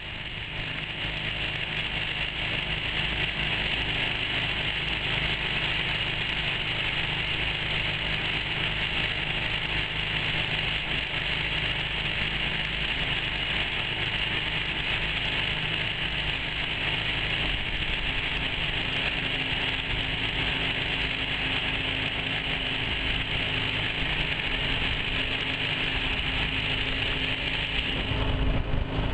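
Homemade mud motor (surface-drive outboard) running steadily while pushing a boat, getting louder over the first few seconds. A heavier low rumble comes in near the end.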